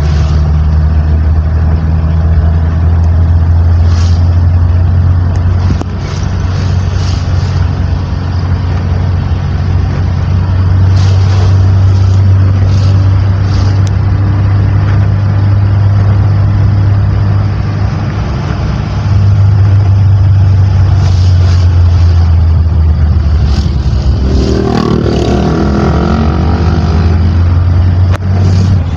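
Vehicle engine and road noise on the move: a loud, steady low drone that eases off and picks up again a couple of times as the speed changes. About three-quarters of the way in, a brief sound with several shifting pitches rises over it.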